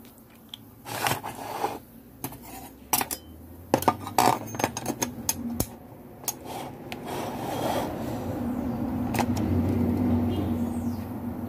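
Handling noise: a run of sharp clicks, knocks and scrapes of hard objects and a metal amplifier case being handled on a bench, then a steady low hum that swells in after about seven seconds.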